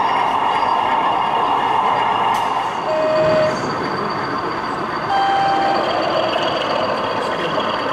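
Steady background hubbub of a busy exhibition hall. Two short steady beeping tones sound over it, a lower one about three seconds in and a slightly higher one about two seconds later.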